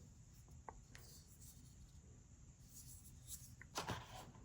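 Near silence broken by a few faint clicks and light scraping from small accessories and their packaging being handled, a little busier in the last second or so.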